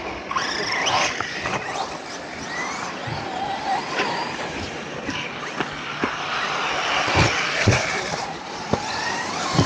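Large electric RC cars running under throttle: short whines that rise and fall over a steady rushing noise, with several sharp knocks, the loudest a little after seven seconds.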